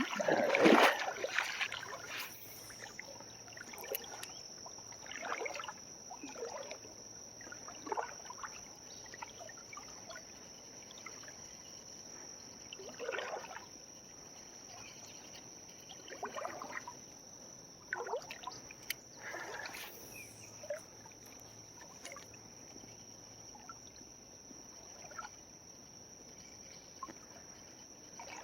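Small creek trickling, with a steady high-pitched tone over it and scattered short soft noises.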